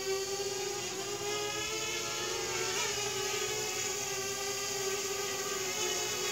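Parrot Bebop 2 quadcopter's rebuilt motors and propellers whirring at a steady pitch as it comes in to land, running normally.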